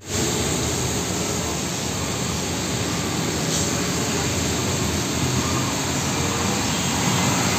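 Traffic on a wet road: a heavy fuel tanker truck's engine running as it drives past, under a steady hiss of tyres on wet asphalt.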